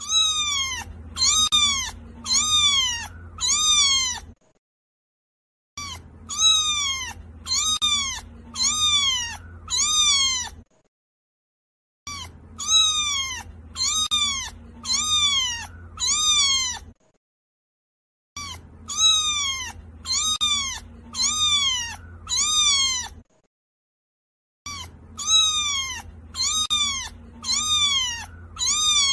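Kitten meowing in runs of five short, high meows, each rising then falling in pitch. The same run repeats identically about every six seconds, with dead silence between, like a looped recording.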